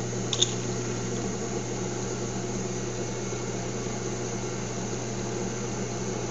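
Drill press motor running steadily with a small twist bit as it drills a hole through a quarter-inch metal rod spindle, a steady hum with a hiss over it. A short sharp tick about half a second in.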